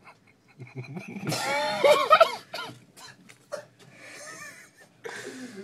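Loud human vocal outburst with pitch that bends up and down, lasting about a second. It is followed by a few sharp clicks and two shorter, quieter vocal sounds near the end.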